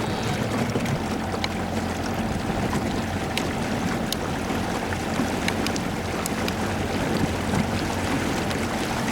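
1991 Evinrude 30 hp two-stroke outboard running steadily under way, with water rushing past the boat. Its timing has just been retarded per Evinrude's service bulletin for the miss at high idle, and it runs without missing or coughing.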